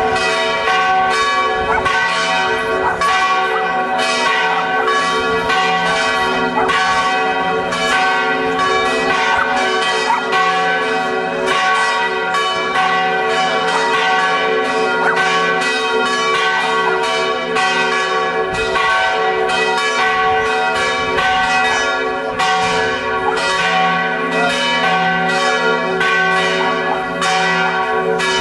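Church bells pealing for the feast day, struck several times a second, their tones ringing on over one another without a break.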